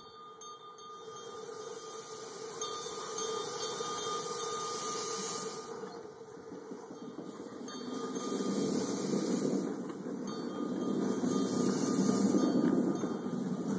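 Miniature coal-fired live-steam locomotive running with riding cars behind it: steam hiss and the rumble of small wheels on the rails, growing louder from about eight seconds in.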